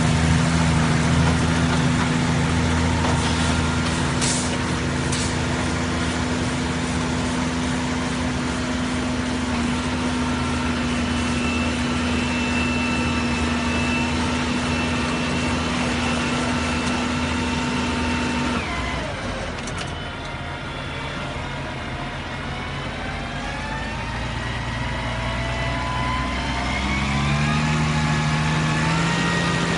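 Farm tractor engine running steadily. Its pitch drops sharply about eighteen seconds in, then climbs back up over the following several seconds.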